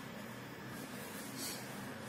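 Faint scratchy rubbing of an oil pastel crayon shading across paper, over a steady background hiss, with one slightly louder stroke past the middle.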